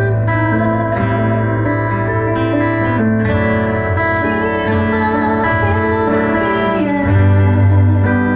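A band playing music, led by guitar over sustained bass notes, with short bright crashes near the start and about four seconds in.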